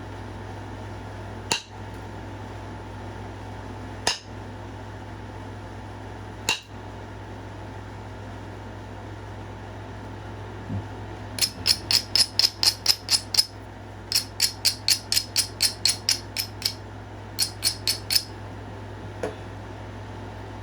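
Flintknapping a stone point: three sharp single clicks a couple of seconds apart, then three runs of quick light strokes on the stone's edge at about six a second, over a steady low hum.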